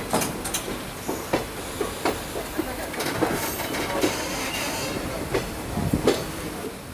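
Wheels of a moving Indian Railways passenger coach running on the track, heard at an open coach door: a steady rumble with sharp clacks and knocks at uneven intervals as the wheels pass over rail joints.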